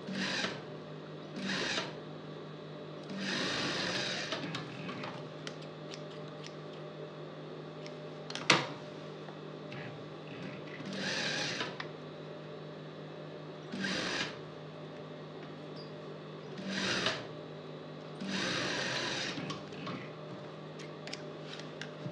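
Industrial lockstitch sewing machine stitching in short runs of about a second, with a steady hum between runs. A single sharp click about eight and a half seconds in is the loudest sound.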